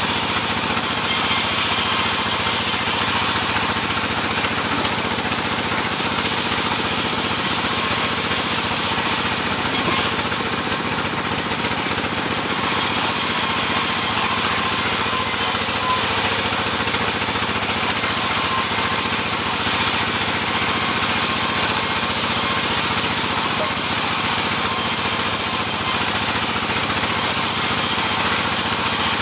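Sawmill saw and its motor running steadily, a loud constant mechanical noise with no breaks.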